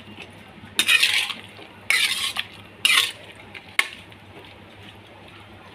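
Metal ladle scraping and stirring through thick chickpea curry in an iron kadhai: three scraping strokes about a second apart, then a short clink of metal on metal.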